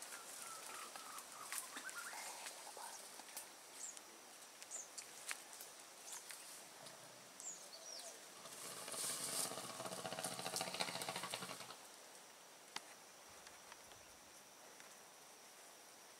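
Scrub-jungle ambience: a steady high insect drone, short bird chirps and scattered sharp cracks like snapping twigs. A bit past the middle, a louder rustle with a low hum lasts about three seconds.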